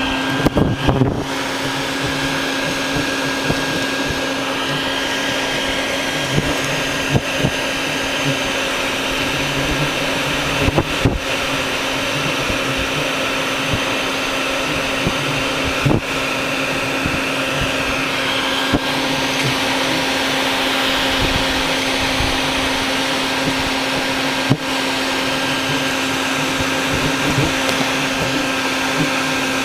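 Vacuum cleaner running steadily with a constant motor whine and rush of air as it sucks bald-faced hornets from their nest, with a few short sharp clicks along the way.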